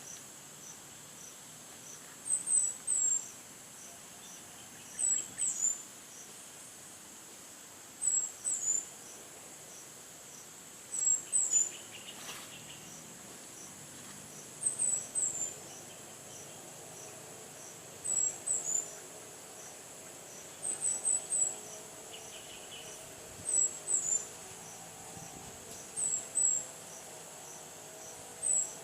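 Crickets and other insects trilling in a steady high drone, with a sharp call of two or three quick high chirps repeating about every three seconds.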